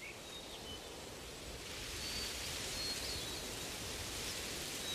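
Steady outdoor background hiss that swells slightly about two seconds in, with a few faint, brief high chirps.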